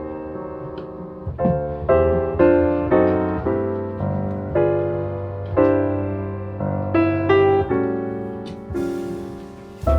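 Background piano music: single notes and chords, each struck and left to ring out.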